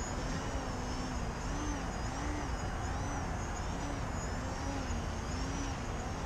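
Emax 2206 1500 kv brushless motor on a small electric 3D foam plane, driving an APC 8x4.1 prop. Its whine rises and falls again and again as the throttle is worked to hold a low hover, over a steady low rumble.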